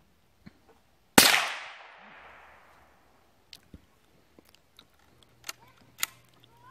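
A single rifle shot about a second in, its report trailing off over a second or so. It is followed by several sharp metallic clicks as the rifle's action is worked to reload.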